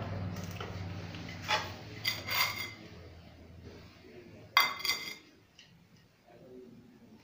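Steel bowls and a serving spoon clinking against each other, a few sharp ringing clinks in three small groups, the loudest near the middle. A low hum fades away during the first few seconds.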